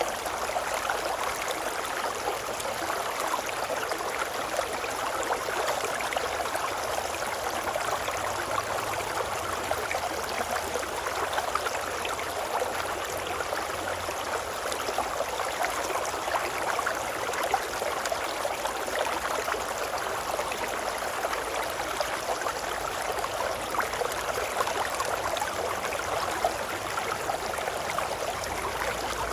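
Babbling river water running steadily, a dense even rush with fine splashing and gurgling detail and no pauses or changes.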